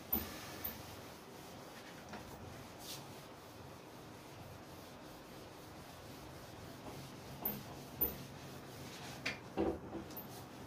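Handheld whiteboard eraser rubbing across a whiteboard, wiping off marker writing, with a few light knocks near the end.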